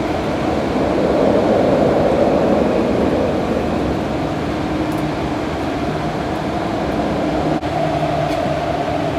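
Tokyu 8500 series subway train running through a tunnel, heard from inside the carriage: a steady, loud rumble of wheels and track with a low motor hum.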